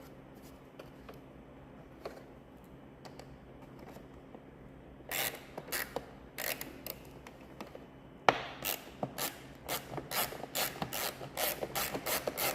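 Hand ratchet clicking as it tightens screws into an instrument cluster housing. A short group of clicks comes about five seconds in, then a steady run of about three clicks a second from about eight seconds on.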